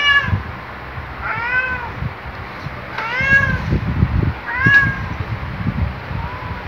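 Domestic cat meowing over and over, about five separate meows a second or so apart, each one rising then falling in pitch, the last one faint. Low thumps sound in between, about halfway through.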